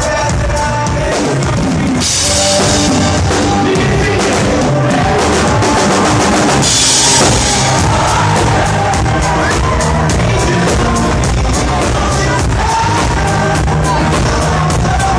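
Live band playing loud music with a driving drum-kit beat, and cymbal crashes about two and seven seconds in.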